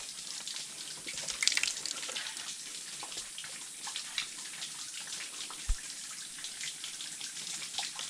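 Spring water running and splashing steadily, with one short low thump a little before six seconds in.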